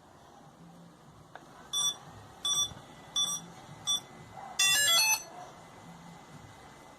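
Four short electronic beeps about two-thirds of a second apart, followed by a quick run of stepping tones lasting about half a second, from a drone being repaired.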